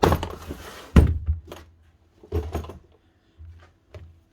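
Handling noises: a rustle, then a sharp thump about a second in, followed by a few lighter knocks.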